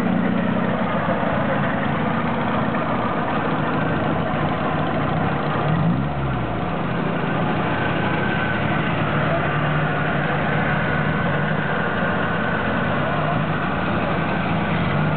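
Engines of classic Eastern Bloc cars, two-stroke Trabants among them, idling and running steadily close by, with a brief rise and fall in engine pitch about six seconds in.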